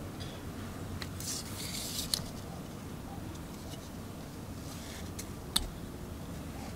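A paper slip and a thin brass strip handled between the fingers: a brief rustle about a second in that ends in a small click, then a single sharp, louder click near the end, over a low steady background rumble.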